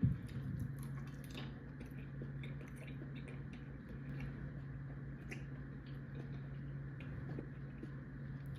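A person chewing food close to the microphone: soft, wet mouth sounds and small clicks, over a steady low hum.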